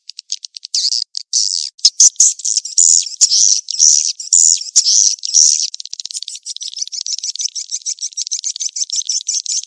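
Swiftlet calls played as a lure for swiftlet houses (the mating-chase call). A fast train of dry, high clicks gives way to harsh, buzzy twittering chirps, then to a rapid, even run of clicks.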